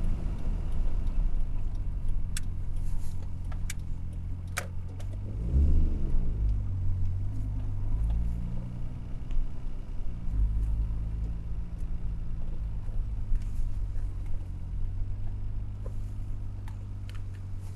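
Car engine running at low speed, its pitch rising and falling once about six seconds in, with a few light clicks in the first few seconds.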